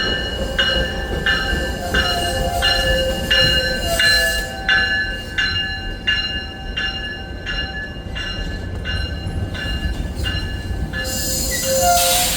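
A bell rings steadily, about one and a half strokes a second, over the low rumble of a train standing at the platform. Near the end comes a short, loud hiss of air.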